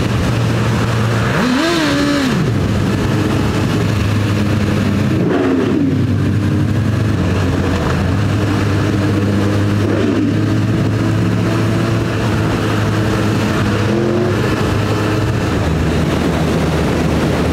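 Motorcycle engine running under way with wind rushing over the helmet microphone; the revs rise and fall briefly a few times, about two seconds in, around five and a half seconds, at ten seconds and again near fourteen seconds.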